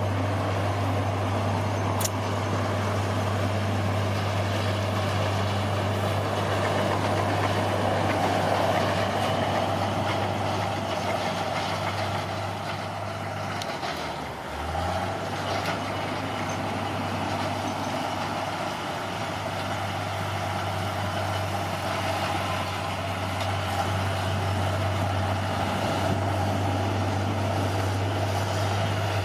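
Bulldozer's diesel engine running steadily under work, with a brief drop in the engine note about halfway through before it picks back up.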